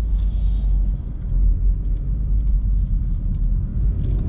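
Steady low rumble of a car's engine and tyres while driving, heard from inside the cabin, with a soft hiss for about the first second.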